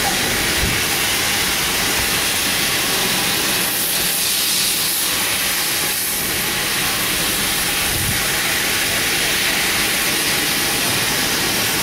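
Steady, loud hiss of escaping steam from a GWR Hall-class steam locomotive standing close by.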